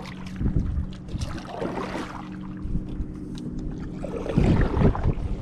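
Canoe being paddled: paddle strokes swishing through lake water, the strongest about four seconds in, over a steady low hum.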